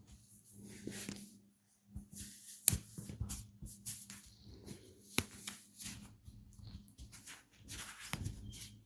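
A barber's hands rubbing and patting skin during a massage, in short irregular strokes, with two sharp clicks about three and five seconds in.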